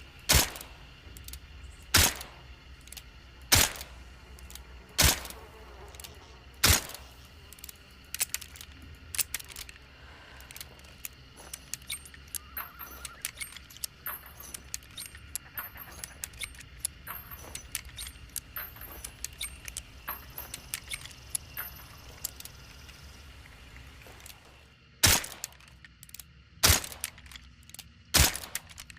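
Suppressed Nagant M1895 revolver firing single shots about every second and a half, five near the start. A long run of small metallic clicks and rattles follows, typical of the revolver being reloaded, then three more shots near the end.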